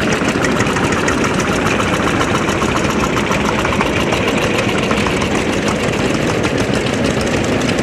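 Several vintage Svoboda tractors driving past, their diesel engines running with a steady, even, rapid beat of firing pulses.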